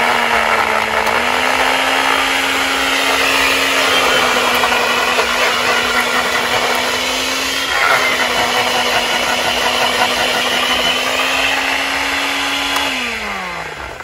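Electric countertop blender running, chopping scallion, hot peppers, onion and garlic into a thick green seasoning. Its motor note breaks briefly about eight seconds in as the jar is tipped, then the blender is switched off near the end and spins down with a falling whine.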